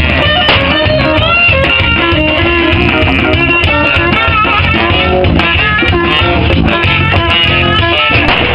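A live band playing loudly, with saxophones over a drum kit and a steady beat.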